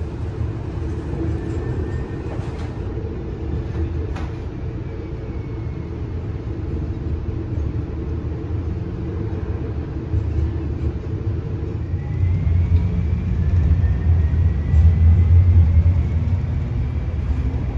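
Electric streetcar running along its track, heard from inside the car: a steady low rumble of wheels on rail and running gear. A few light clicks come early on, and over the last few seconds a faint rising whine joins in as the rumble grows louder.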